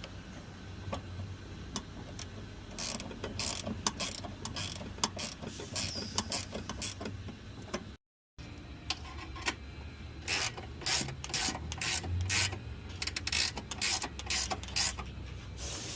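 Hand socket ratchet clicking in quick runs as bolts are tightened down, the pawl ticking on each back-swing. There are two spells of clicking, broken by a brief dropout about eight seconds in.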